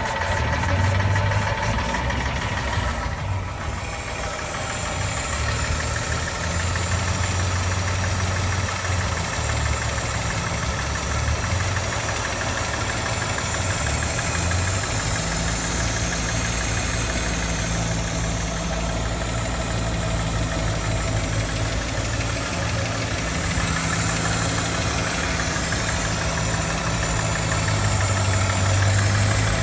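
Mercedes-Benz W164's M272 V6 engine idling steadily with a knock, which the owner cannot place: piston knock or hydraulic lifters.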